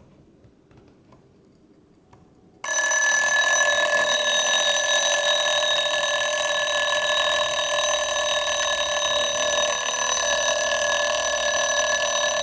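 Jaeger-LeCoultre Recital wind-up alarm clock's mechanical alarm going off: a loud, steady continuous bell ring that starts abruptly about two and a half seconds in, after a few faint clicks as the hands are advanced to the alarm time.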